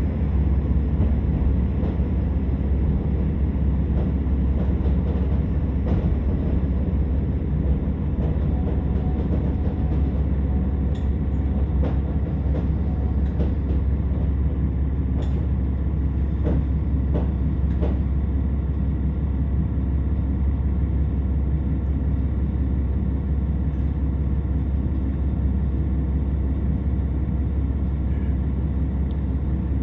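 Interior of a KiHa 47 diesel railcar on the move: a steady low rumble of the engine and wheels on the rails, with scattered sharp clicks and knocks in the middle as the train slows into a station.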